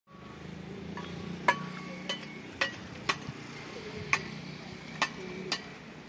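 Mason's steel trowel striking bricks, sharp ringing taps about seven times at uneven intervals, over a steady low hum.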